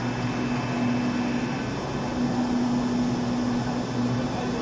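H-beam assembly, welding and straightening machine running with its conveyor advancing the beam: a steady machine drone with a constant low hum.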